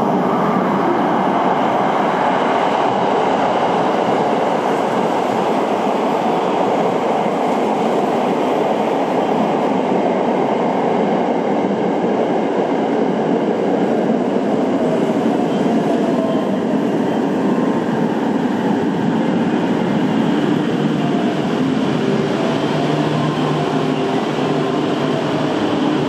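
JR West Thunderbird limited-express electric train pulling in alongside a station platform, its wheels and running gear loud and steady as it slows. Thin steady tones come in over the last ten seconds or so as it draws to a stop.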